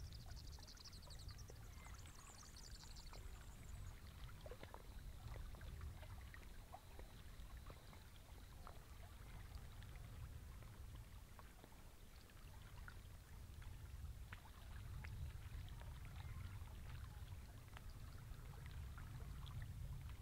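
Quiet lakeshore ambience: a low, uneven rumble of wind on the microphone with faint lapping of small waves at the water's edge, and a brief high chirping in the first few seconds.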